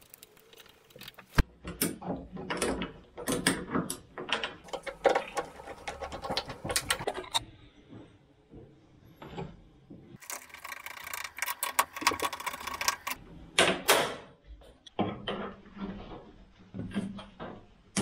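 Irregular clicking, rattling and knocking of a screwdriver and small connector parts being worked on an aluminium box, as the insert of a Harting industrial plug is fitted. A sharp click stands out about a second and a half in.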